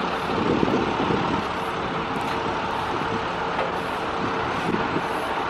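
Diesel school bus engine idling, a steady rumble with a faint constant hum.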